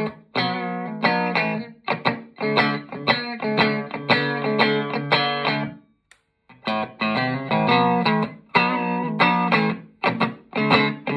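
A Grubisa '53-style Telecaster electric guitar playing rhythmic chords through an amplifier, with a pause of about half a second midway.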